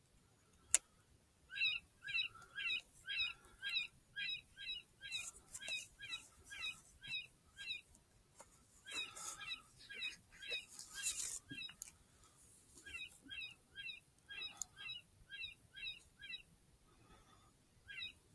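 A single sharp click about a second in, then a high, bird-like call repeated about three times a second in runs of several seconds with short breaks.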